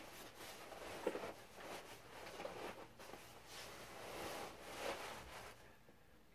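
Glossy nylon down jacket rustling in several short, faint swishes as the wearer moves his arms, dying down near the end.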